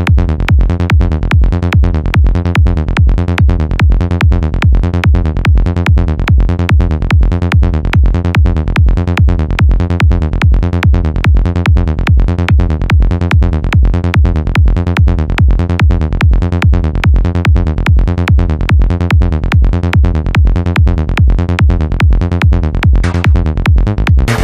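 Psytrance track with a steady kick drum on every beat and a rolling bassline. A high hissing sweep comes in near the end.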